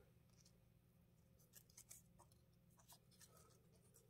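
Near silence, with faint scattered crackles and ticks of old, stiff friction tape being unwound by hand from a motor's wire splice.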